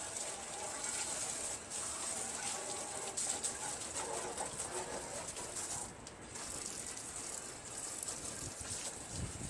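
Pressurized air-and-water fire extinguisher spraying a jet of water, a steady hiss that dips briefly about six seconds in.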